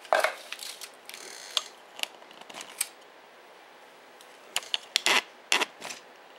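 Scattered short plastic clicks and knocks of kitchen handling: the clear plastic food processor bowl being set down on the counter and the camera being moved. The loudest knock comes right at the start, and a quick cluster of clicks comes near the end.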